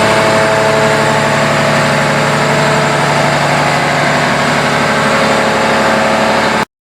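An engine idling steadily, loud and even, then cutting off suddenly near the end.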